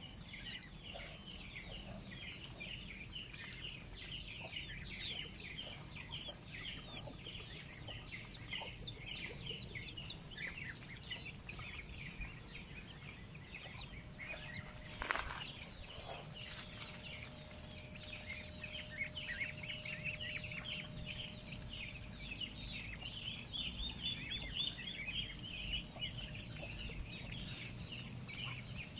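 Feeding poultry, Muscovy ducks and chickens: a steady run of many short, high chirps and clucks. A single sharp knock about halfway through.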